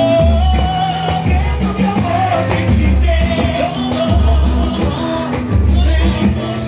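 Live pagode band playing: a male singer sings over acoustic guitar, with a deep bass note about every second and a half and quick percussion strokes.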